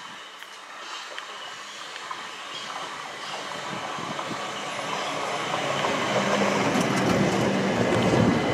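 Class 375 Electrostar electric multiple unit arriving at the platform, its wheels and running gear growing steadily louder as it draws alongside.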